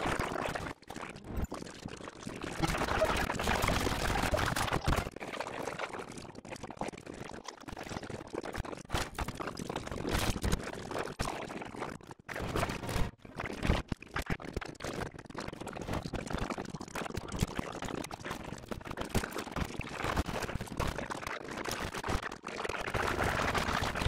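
Animated-film soundtrack chopped into quick snippets: fragments of character dialogue and action sound effects, broken by many abrupt cuts.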